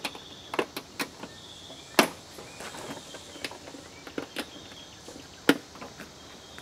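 Red pop-up dog crate being folded and latched by hand: a scatter of sharp clicks and knocks as its panels and locks snap into place, with two louder knocks about 2 seconds and 5.5 seconds in.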